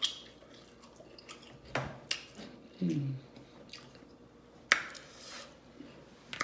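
Close-miked wet eating sounds: saucy shrimp being chewed with squishy, smacking mouth noises and a few sharp lip smacks, the loudest about two-thirds of the way through. There is a short falling "mm" hum about three seconds in.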